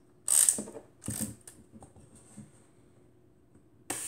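SEMFlex Oto 3.5B twin-lens reflex camera being worked by hand: its side crank is turned with a short ratcheting whir and clicks about a second in. Near the end the shutter, set to 1 second, is fired: its slow-speed gearing whirs for under a second and ends in a sharp click.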